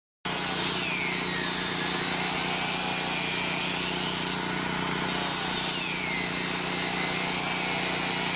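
A 4-inch angle grinder cutting slots into 6-inch PVC well casing to make a well screen, starting suddenly just after the start. Its high whine sinks and rises again twice as the blade works through the pipe, over a steady motor hum.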